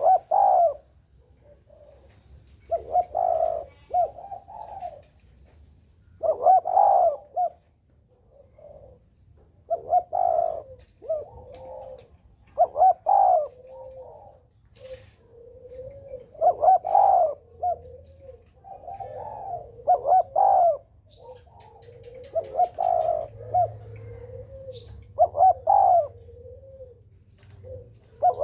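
Spotted dove cooing in repeated full, rounded phrases, one every three seconds or so. Two brief, faint high chirps from another bird come in the second half.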